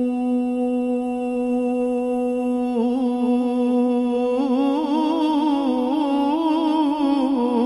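Wordless devotional zikr chant: a steady hummed drone on one held note, joined about three seconds in by a second voice with a wavering, trembling line above it.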